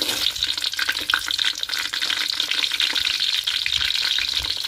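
Hot oil in a kadai sizzling and crackling steadily as chillies fry in it.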